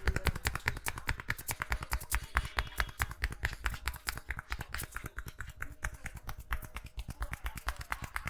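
Barber's hands tapping and slapping rapidly on the head during an Indian head massage: a fast, even run of sharp clicks, about ten a second.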